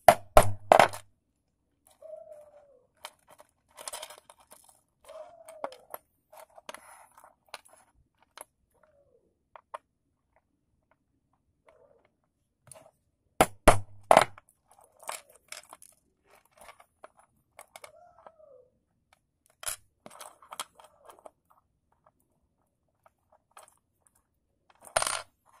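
Sharp metallic taps and clicks from a steel link watch bracelet being worked with a pin tool to take out links. A quick cluster of taps comes near the start and another about halfway through, with single clicks later and near the end and quieter clinking of the links in between.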